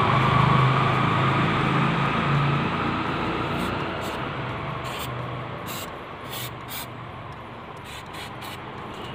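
Aerosol can of anti-rat spray hissing as it is sprayed, loudest at first and tailing off after about three seconds, followed by a few faint clicks.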